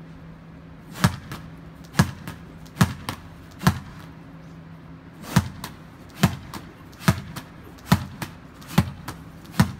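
Small ball struck with the open hand against a shop's metal roller shutter and wall, rallied again and again: about ten sharp smacks, roughly one a second, with a short break a little before the middle. A steady low hum runs underneath.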